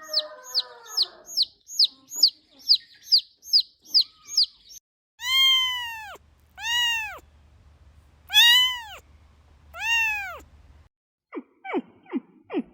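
A cat meowing four times, long drawn-out meows about a second apart, after about five seconds of high, quick chirping from a small bird, roughly two chirps a second. Near the end a run of short, quick, falling animal calls begins.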